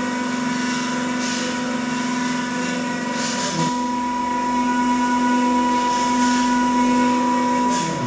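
Electric motors of a cable-driven kinetic installation running with a steady whine of several held tones, shifting about three and a half seconds in.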